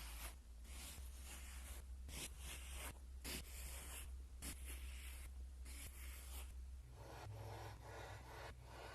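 Kinetic sand being sliced with a blade: a run of short, soft scraping strokes about every half second.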